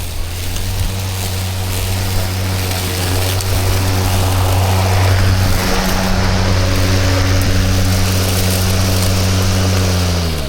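Milwaukee M18 cordless lawn mower running steadily with a constant hum from its electric motor and blade, cutting long grass with a rushing hiss. Near the end the motor is let off and spins down, its hum falling in pitch and stopping.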